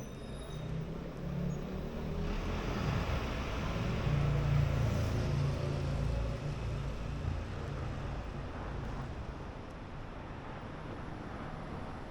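A motor vehicle driving past on a city street: engine rumble and tyre noise that build over about two seconds, peak near the middle, then fade away, over steady traffic hum.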